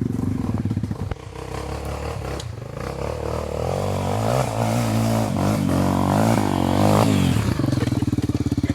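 Honda XR 250 Tornado's single-cylinder four-stroke engine pulling under load, getting louder with shifting revs for several seconds. Near the end it drops back to a steady lower running.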